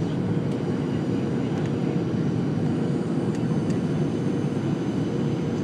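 Steady engine noise heard from inside a small aircraft's cabin in flight: an even, unbroken rumble with a faint steady hum above it.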